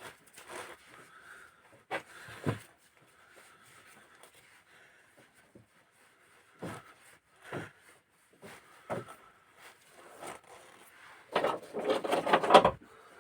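Scattered clicks and knocks of engine valve-train parts being handled and set down during cylinder-head disassembly, with a louder rattling clatter near the end.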